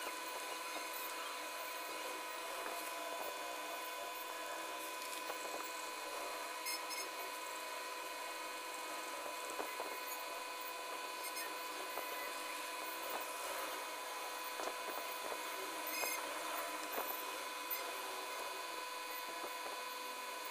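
Pencil scratching softly on paper as it shades, with a few light taps, over a steady whine of several high tones.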